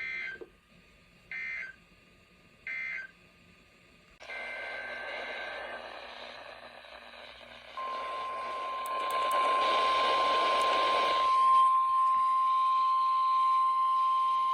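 Weather radio Emergency Alert System tones: three short bursts of warbling digital data tones end one alert. Radio hiss then comes up with more data tones, and about eight seconds in the steady single-pitch warning alarm tone starts and holds.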